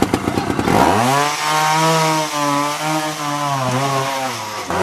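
Trials motorcycle engine popping unevenly at low revs, then revved up with a rising pitch about a second in and held at high revs for about three seconds under load as the bike climbs a steep bank. The revs drop briefly near the end and then rise again.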